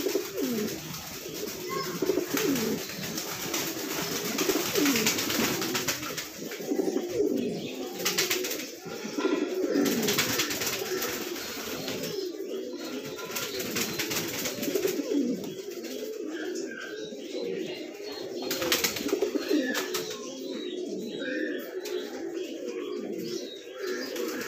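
Pouter pigeons cooing continuously, low rolling coos that overlap one another: the bow-coo of a male courting, puffing its crop and bowing. A few brief rustling sounds break in, around a third of the way through and again about three quarters in.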